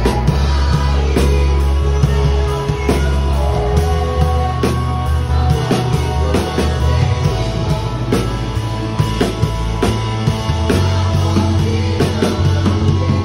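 Acoustic drum kit played with sticks, steady drum and cymbal hits over a full rock-style band with bass and singing.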